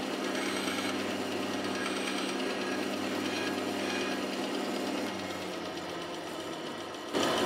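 Bandsaw running with a 3/8-inch blade, its steady motor hum broken by light ticking as the blade nibbles straight into the end of a wooden block in a nibble cut. About five seconds in the hum gets quieter and sinks a little lower.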